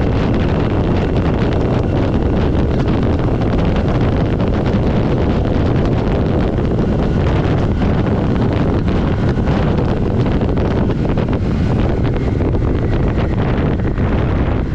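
Steady, loud wind noise buffeting the microphone on a moving motorcycle, a 1982 Yamaha XS400, with the vehicle's running sound blended into it.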